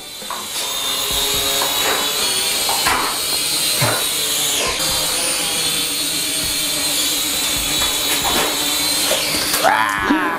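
Syma X5C quadcopter's small motors and propellers whining at flight speed, the pitch wavering up and down with throttle.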